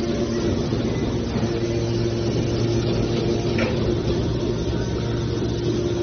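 Hydraulic metal baler's power unit (electric motor and hydraulic pump) running with a steady hum, with a brief click about three and a half seconds in.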